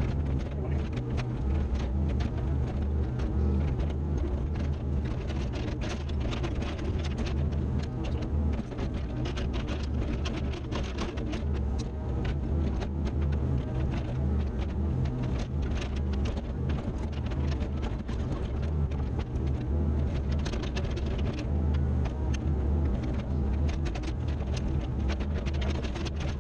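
Diesel engine of a CAT 304 mini excavator running steadily while the machine moves and levels dirt, with a constant low hum and many short clicks and rattles over it.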